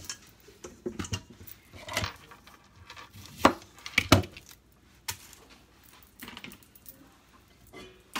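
Kitchen utensils and dishes being handled on a countertop: a scatter of separate knocks and clinks, the two loudest close together about three and a half and four seconds in.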